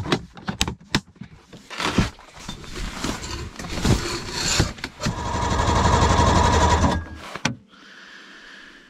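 Ice-fishing gear being packed up: a plastic tote and shelter poles knocking and rustling, with sharp clicks. About five seconds in comes a loud, steady, finely rhythmic rasp lasting about two seconds.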